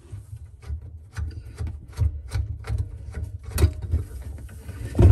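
Brass compression nut on a faucet supply line being worked loose: irregular small metallic clicks and scrapes of the pliers and fitting, with a couple of louder knocks.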